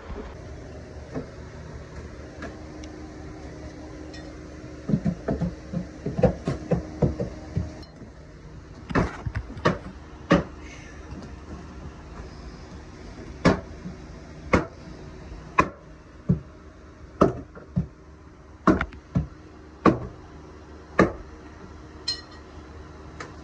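Hammer blows on old hardwood floorboards nailed to the joists, knocking loose boards that run under the wall. A burst of quick, irregular knocks and clatter comes first, then single sharp blows about once a second through most of the rest.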